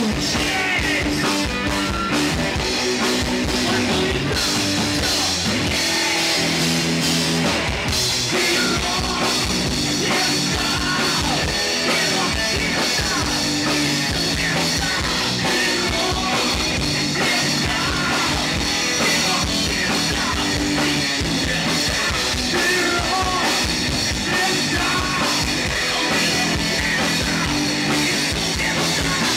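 Rock song played by a band: electric guitar and drum kit with sung vocals, loud and continuous.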